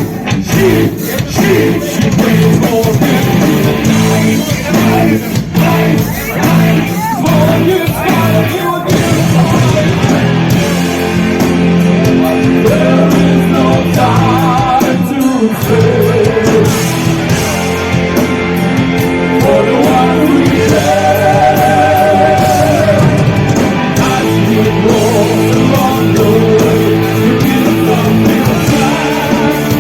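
A heavy rock band playing loud live: distorted electric guitars, bass and drums, with sung vocals. Sharp drum hits stand out in the first third, and held, wavering high notes ring out around the middle and again about two-thirds through.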